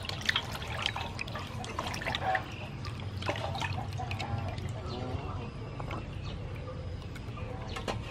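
Hands sloshing and rubbing whole squid in a large metal basin of water, with splashes and drips as the squid are washed and lifted out.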